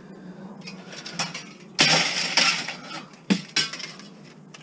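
Light scrap metal thrown into a scrap bin, clattering and rattling for about a second, followed by two sharp metallic knocks.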